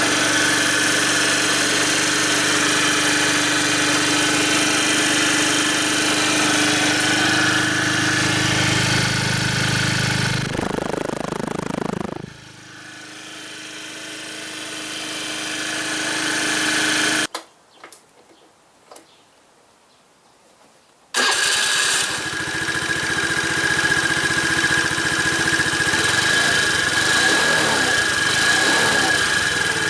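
Honda Dio50 AF62 scooter's small four-stroke single-cylinder engine idling steadily after its carburettor has been stripped and cleaned to cure a no-start. The engine sound falls away about eleven seconds in, there are a few seconds of near silence with a couple of faint clicks, and then it is running again from about twenty-one seconds.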